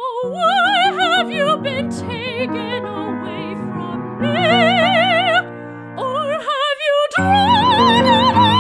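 High soprano voice singing an operatic lament in German with wide vibrato, over a programmed orchestral accompaniment of held chords. The voice breaks off briefly about six seconds in, then comes back higher over a fuller chord.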